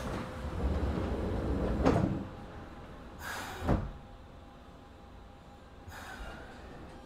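A Kobe Municipal Subway 1000 series car's sliding passenger doors closing. There is a rumble with a knock about two seconds in, then a hiss of air ending in a sharp thump as the doors shut about three and a half seconds in, and a short hiss of air near the end.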